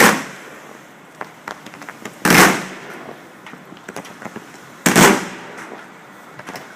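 Fireworks going off close by: three loud booms about two and a half seconds apart, each trailing off over about half a second, with smaller pops and crackles between them.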